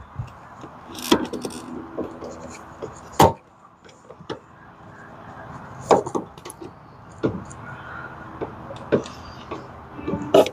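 Several separate sharp knocks and clunks, a second or more apart, over a faint steady hum: hand work on a car's parts.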